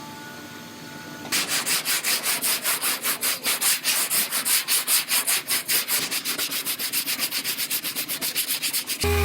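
Hand sanding on a repaired truck bedside panel: rapid, even back-and-forth strokes of a sanding block. They start about a second in and stop abruptly near the end.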